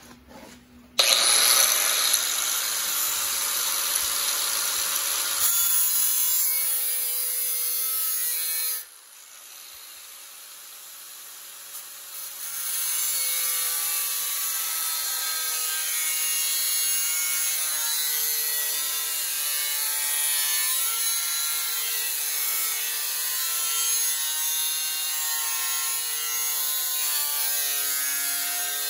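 Angle grinder with a thin cut-off wheel cutting through sheet steel, a steady high whine over a harsh hiss, as a patch panel for a car's radiator support is cut along its line. It starts about a second in, and the cutting noise drops away for about three seconds near the middle before it resumes.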